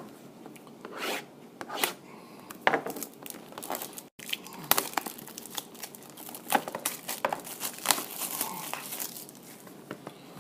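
Plastic wrapping being torn and crinkled off a box of trading cards, in a run of irregular crackles and rips.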